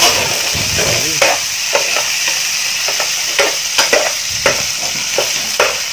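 Sliced meat with garlic and chili sizzling in hot oil in a nonstick frying pan while a spatula stirs it. The spatula scrapes the pan in short strokes about twice a second over a steady sizzle.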